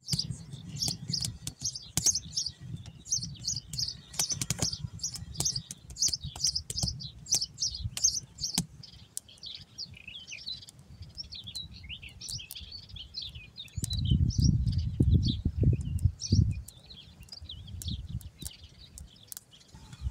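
Small birds chirping in quick, repeated notes, thinning out after about ten seconds. A low rumble runs underneath and swells louder for a couple of seconds about fourteen seconds in.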